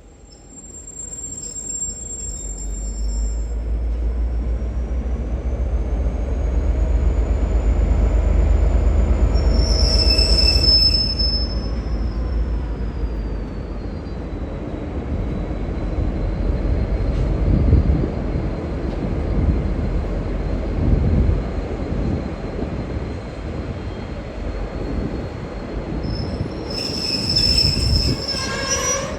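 V/Line N class diesel locomotive moving its passenger cars slowly through the station trackwork. The deep engine rumble swells over the first ten seconds and then eases. A thin, high wheel squeal glides up and back down, with sharper squeals about ten seconds in and again near the end, and a run of knocks from the wheels over rail joints in between.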